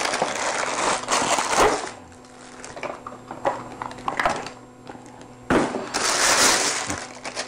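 Cardboard box and plastic packaging rustling and crinkling as a pop filter is taken out, with scattered small clicks in the middle. The loudest crinkling comes near the end as the plastic bag is handled.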